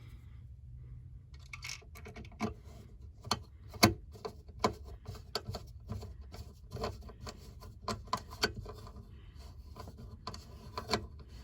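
Small screws being turned in by hand with a Phillips screwdriver to hold a panel cover on: a run of irregular clicks with light scraping and rubbing.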